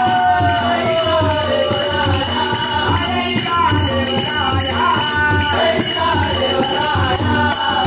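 Traditional Indian folk music with a steady drum beat, jingling percussion and a high melody line that slides in pitch.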